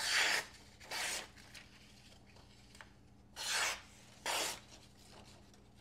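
S90V steel blade of a Tuya Caladan folding knife slicing through a sheet of printer paper in four strokes, each a short papery hiss, two close together at the start and two about a second apart later. It is a paper-cutting sharpness test of a toothy edge.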